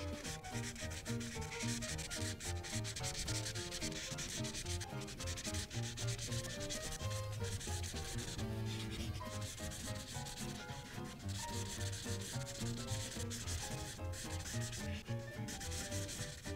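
Felt-tip marker rubbed rapidly back and forth over paper, filling in a large area of a colouring page in continuous scratchy strokes that ease off briefly a few times.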